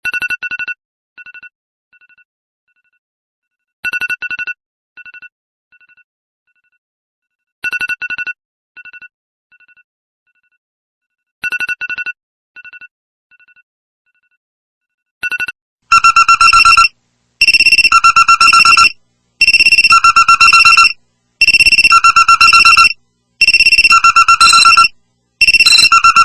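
iPhone electronic alert tones. First a short burst of rapid beeps trailing off in fading echoes, repeated about every four seconds. Then, about 16 seconds in, a much louder tone of rapid pulses in roughly one-second bursts, switching between a lower and a higher pitch.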